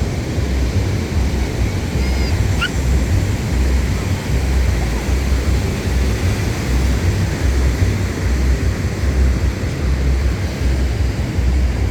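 Wind buffeting the microphone with a gusting low rumble, over the steady wash of ocean surf.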